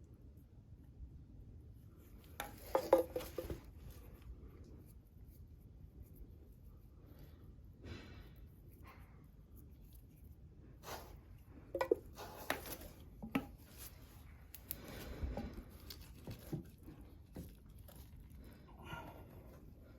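Scattered knocks, clinks and rustles of objects being handled, loudest about three seconds in and in a cluster around the middle.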